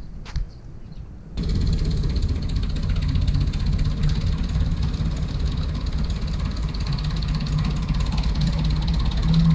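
Farm tractor's engine running steadily as it tows a loaded flatbed trailer. It comes in loud about a second and a half in, after a quieter start with a single click.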